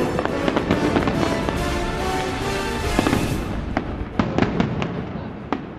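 Aerial fireworks going off in a dense run of bangs and bursts, with music playing alongside for the first half. After about three seconds the bangs stand out separately, several a second.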